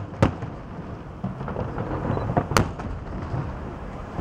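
Aerial firework shells bursting: several sharp bangs, the loudest about two and a half seconds in, over a steady low rumble of booms echoing.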